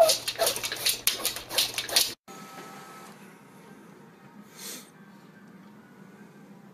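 Rapid clattering and scratching as a dog lunges and paws at its reflection in a mirror, for about two seconds. After an abrupt cut, a printer runs faintly, with one brief whir about four and a half seconds in.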